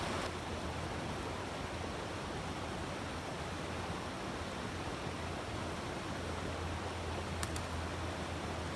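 Water of a small creek rushing steadily. A single short click comes near the end.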